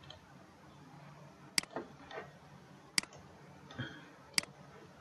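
Computer mouse clicking three times, sharp single clicks about a second and a half apart.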